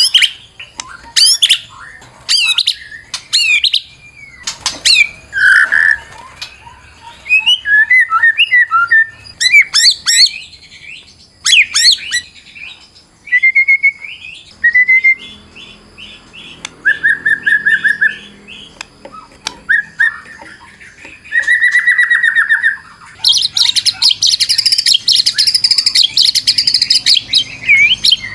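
White-rumped shama singing a varied song. It opens with loud, sharp sweeping whistles, then gives quick runs of repeated notes and clear held whistles, and from about 23 seconds in breaks into a dense, high chatter.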